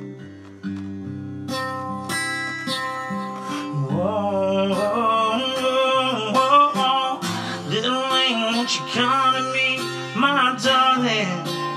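Acoustic guitar strummed and picked in a slow ballad passage, with a male voice singing along without clear words from about four seconds in.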